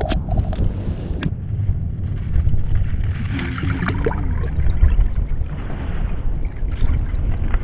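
Wind buffeting the microphone: a steady, uneven low rumble, with a few sharp clicks in the first second or so.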